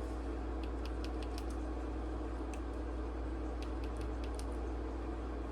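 Light, sharp clicks of a flashlight's push-button switch being pressed, several in quick succession about a second in and a few more scattered later, as the button is clicked repeatedly to unlock the light; a steady low hum runs underneath.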